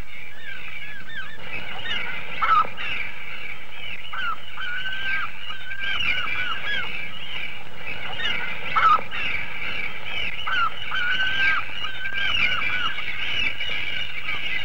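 A seabird colony calling: many birds' cries overlapping in a dense, continuous chorus, with a couple of louder calls about two and a half seconds in and again near nine seconds.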